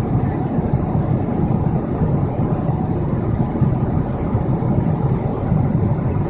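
Steady cabin noise of a Boeing 777-300ER airliner in flight: engine and airflow noise heard as an even low rumble, with a faint hiss above it.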